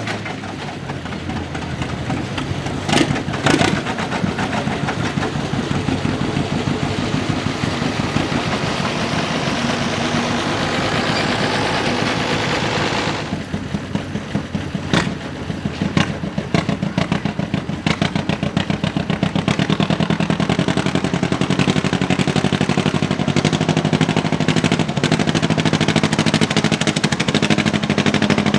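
Two-cylinder John Deere tractor engines working under load against a pulling sled, with an even, pulsing exhaust beat. In the first half one tractor's engine builds to a loud, hard run, with two sharp bangs about three seconds in. After a break near the middle, a 1938 John Deere G's two-cylinder engine starts quieter and builds up again as it pulls.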